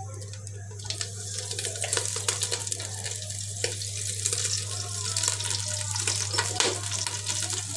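Oil heating in a cooking pan, a steady hiss that builds about a second in, dotted with small crackles, over a steady low hum.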